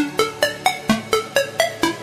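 Electronic background music: a quick run of short plucked synth notes, about four to five a second, stepping up and down in pitch.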